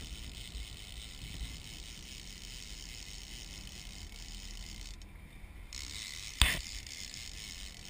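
Fishing reel's drag clicking steadily under the pull of a hooked king salmon on a bent rod, with one sharp knock about six and a half seconds in.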